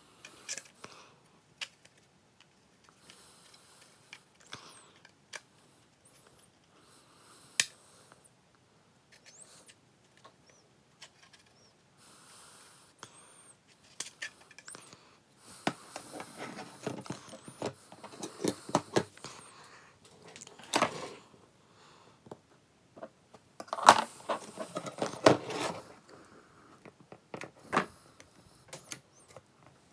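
Hands working on the brittle plastic housing of a Nissan Skyline R34 GT-R multi-function display unit being taken apart: scattered clicks, scrapes and knocks of plastic and small parts. The handling comes in two denser clattering spells, the louder one about two-thirds of the way through.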